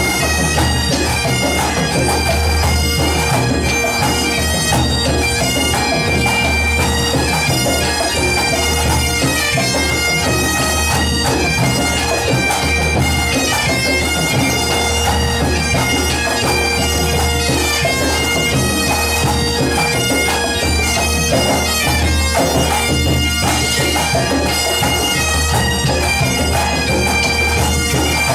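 A Breton bagad, a pipe band, playing a tune: bagpipes over steady drones, with drums and cymbals keeping a steady beat.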